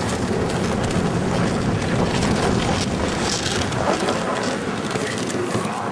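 Wind buffeting the microphone on a moving dog sled: a steady rushing noise, heaviest in the low range.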